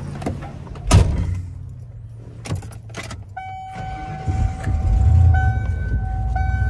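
Inside the cab of a 1990s Ford full-size pickup: a door shuts with a knock about a second in, then keys jangle and click in the ignition. A warning chime dings about once a second, and the gasoline engine cranks and catches a few seconds in, then idles with a steady low rumble.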